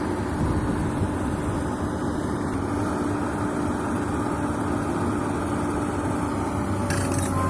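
Excavator's diesel engine running steadily with a low, even drone. Near the end a run of sharp clicks and knocks starts over it.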